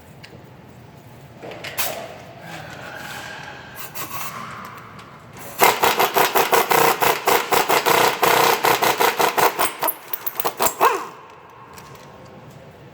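Ratchet wrench running on a fastener of the A/C compressor: a fast, even train of clicks over a steady whine for about five seconds, then it stops. Lighter scraping and tool handling come before it.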